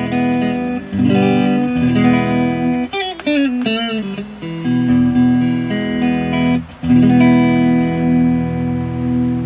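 Fender Japan ST54-95LS Stratocaster-style electric guitar played on its front (neck) pickup through an amp. Chords ring out, with a falling run of notes and a wavering bend about three seconds in, a short break near seven seconds, then a chord left ringing.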